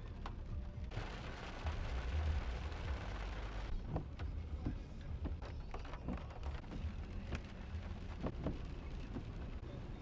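Wind buffeting the microphone: a heavy, continuous low rumble, with a gust of hiss that comes in about a second in and drops away before four seconds. Scattered light knocks and clicks run through the rest.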